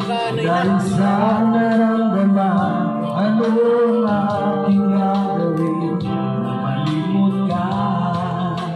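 A voice singing a melody over backing music, played loud through a sound system.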